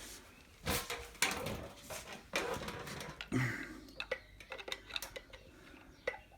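Irregular metallic clinks and knocks of a screwdriver being handled and fitted against the motorcycle's metal parts.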